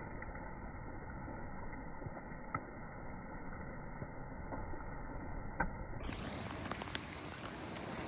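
Steady rushing of a small river's running water, with a few faint clicks.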